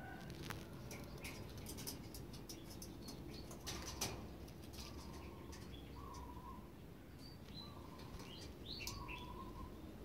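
Domestic pigeons shifting about on a loft, with a brief burst of wing flapping about four seconds in as one hops up onto the cage, and light clicks of feet and perching. Short bird chirps come now and then in the second half.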